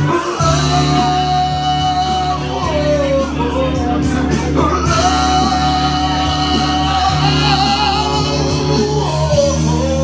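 A man singing loudly into a microphone over backing music, holding long drawn-out notes, with a steady bass line underneath.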